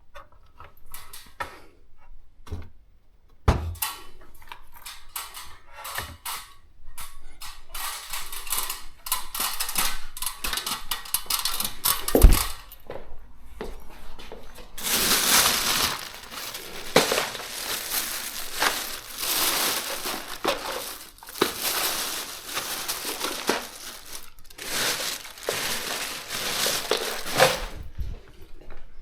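Handling noise: a run of clicks and light knocks with a couple of dull thumps, then long stretches of rustling and scraping.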